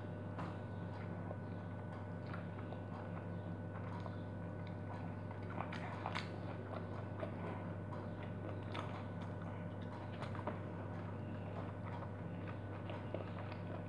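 A person chewing lemon wedges: scattered small wet mouth clicks and smacks over a steady low hum.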